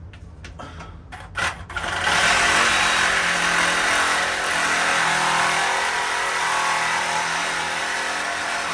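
A few light knocks, then, about two seconds in, a cordless power saw starts and runs steadily, cutting. Its blade is dull.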